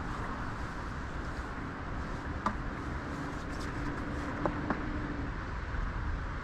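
Steady wind rumble and hiss on the microphone, with a few light clicks about two and a half and four and a half seconds in, and a faint steady hum for a few seconds in the middle.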